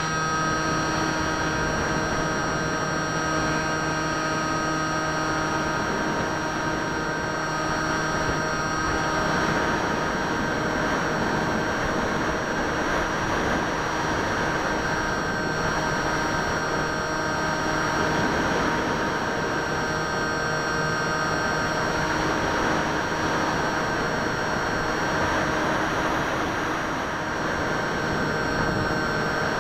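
Bixler 2 RC plane's electric motor and propeller whining steadily at full power, picked up by a camera riding on the plane, with a constant rush of air past the airframe.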